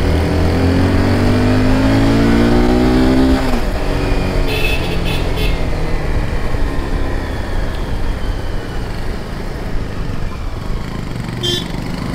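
Sport motorcycle engine, heard from on the bike, revving up steadily in pitch while accelerating through a gear for about three and a half seconds. Then the throttle is closed and the pitch drops. The engine and road noise then run on steadily, with a few short high chirps about five seconds in and near the end.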